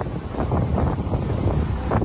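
Strong wind buffeting the microphone: a heavy low rumble that flutters unevenly with the gusts.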